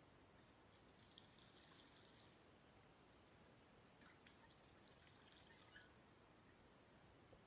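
Faint trickle of water in two short spells, each a second or two long, with a few small drips.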